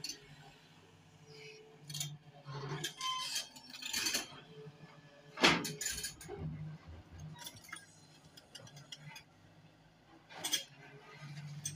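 JCB long-boom excavator running with a steady low engine hum, with scattered metallic clinks and knocks as its bucket works in the rock and mud at the bottom of a well; the loudest knock comes about five and a half seconds in.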